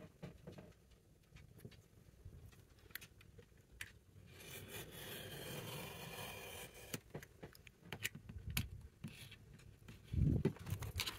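Retractable box cutter drawn in one long scraping cut of about two and a half seconds, with scattered clicks and knocks from the ruler and tools being handled around it, and a dull thump near the end.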